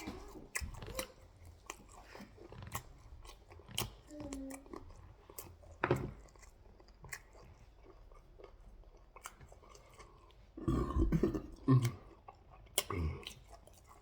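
Close-up chewing and mouth sounds from eating jollof rice and turkey: scattered wet clicks and smacks, busiest and loudest about eleven seconds in.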